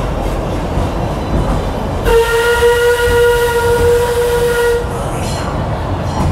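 Steam locomotive's whistle on the Western River Railroad: one long, steady blast of nearly three seconds, starting about two seconds in. Under it runs the steady rumble of the moving train.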